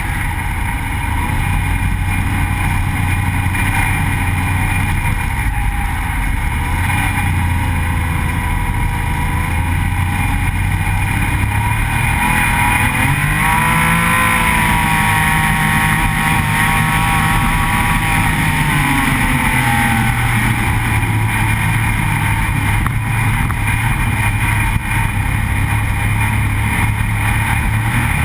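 Snowmobile engine running at trail speed, heard from on board the sled. About halfway through, the engine pitch rises and holds higher for a few seconds, then drops back to a steady run.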